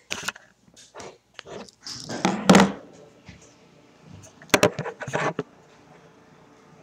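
English Springer Spaniel puppy playing with a soccer ball: scattered knocks and scuffles, with a louder burst about two and a half seconds in and a quick run of knocks around five seconds.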